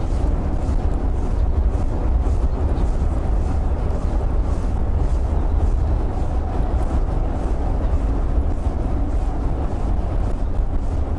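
Wind buffeting an outdoor camera microphone: a heavy, steady low rumble with faint regular ticks above it.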